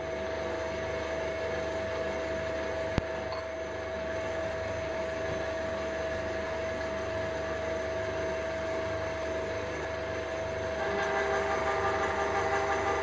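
Electric machinery running steadily: a motor hum with a steady whine. There is one sharp click about three seconds in, and the noise grows louder near the end.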